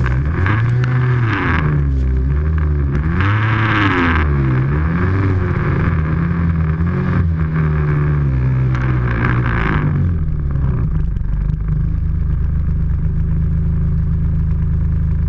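Snowmobile engine revving up and down as it ploughs through deep powder, with repeated rushes of spraying snow. About ten seconds in the throttle comes off and the engine settles to a steady idle.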